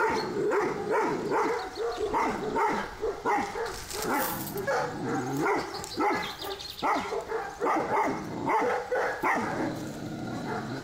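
Kangal shepherd dog barking repeatedly, about two or three barks a second.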